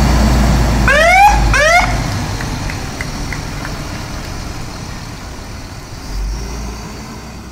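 Fire engine's siren giving two short rising whoops as the truck rolls past. Its diesel engine rumbles loudly, then fades as it moves away.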